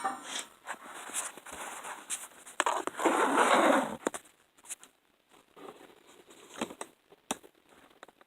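Metal parts and tools being handled on a work surface: light clicks and taps, with a scrape lasting about a second and a half around the middle.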